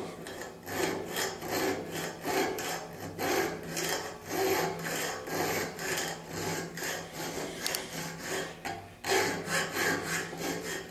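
A 1/8 inch round chainsaw file rasping back and forth on the metal trigger of a DK1 Death Klutch gopher trap held in a vise. It is cutting a shallow radius, a seat for the trigger rod, in quick even strokes with a brief pause near the end.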